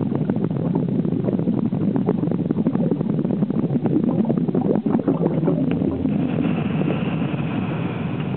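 Muffled underwater noise picked up through a camera housing: a steady low rumble thick with fine crackling clicks. A faint high whine joins about six seconds in.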